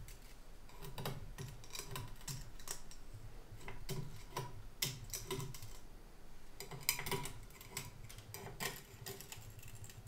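Irregular light clicks and taps of small, thin printed plastic pieces being picked off a 3D printer's build plate with tweezers.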